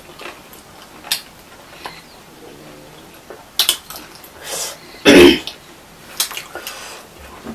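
Close-miked eating: chewing and slurping chow mein noodles eaten with chopsticks, with a few sharp clicks and one loud short burst about five seconds in.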